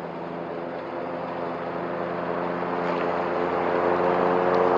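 Cub Cadet ZTS1 zero-turn riding mower running at a steady engine speed while mowing tall grass and weeds, growing steadily louder as it approaches.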